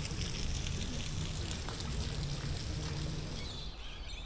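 Water trickling and splashing into a koi pond, a steady running-water sound that drops away near the end.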